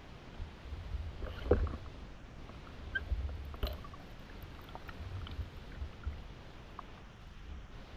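Muffled underwater sound through a GoPro's waterproof housing: a low rumble of water moving around the diver and camera, with scattered small clicks and knocks. The loudest knock comes about one and a half seconds in.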